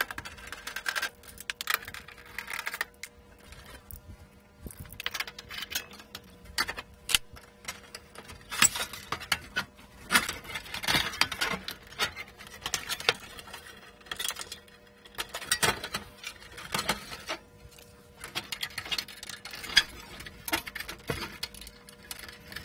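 Hand and screwdriver work on a steel computer chassis: irregular metallic clicks, clinks and scrapes as the power-supply module's screws are undone and the module is worked loose and slid out.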